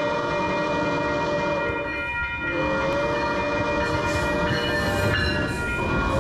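Train horn blowing long, steady blasts, with short breaks between them about two seconds in and again near the end.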